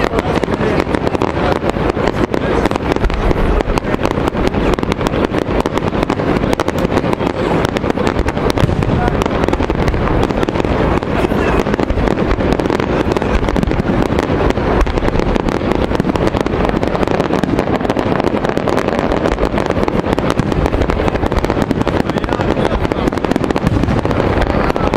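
Aerial firework shells bursting in rapid, unbroken succession: a dense run of bangs and crackles.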